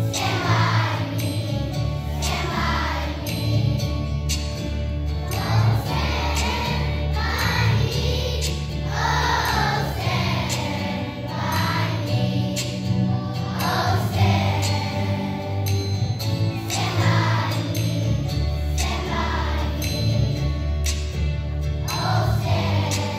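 Children's choir singing in unison over instrumental accompaniment with a steady bass line.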